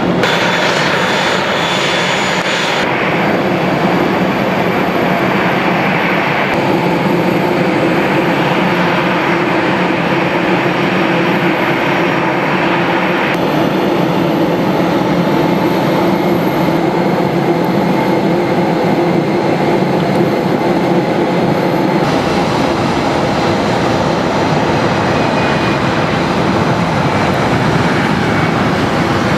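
Jet airliner engines running: a loud, steady whine over a low hum. The sound changes abruptly several times.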